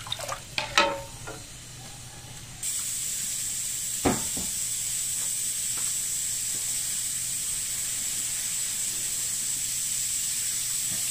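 Soy-sauce-and-sugar sauce heating in a pan to a simmer, hissing steadily; the hiss starts suddenly about two and a half seconds in. A few light utensil clicks come before it, and there is a single knock a little after.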